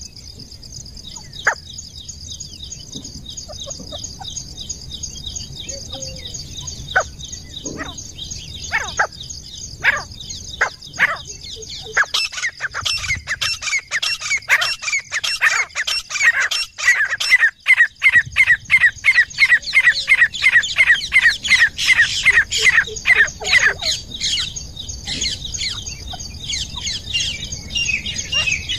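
Grey francolin (teetar) calling. A few sharp single calls come first. Then, from about twelve seconds in, a fast run of loud repeated calls, each falling slightly in pitch, goes on for about twelve seconds, with a few more calls near the end. A steady high chirring runs underneath.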